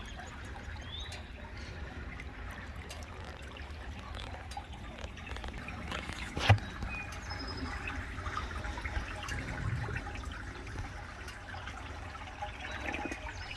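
Woodland outdoor ambience: a steady hiss over a low rumble, with a few faint high chirps and one sharp click about six and a half seconds in.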